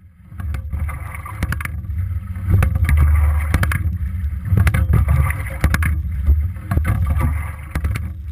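Sculling in a single scull, heard from a camera mounted just outboard of the oarlock. A steady low wind rumble on the microphone runs under water rushing and splashing, which swells about every two seconds with each stroke. Many sharp knocks and clicks come from the oars and rigging.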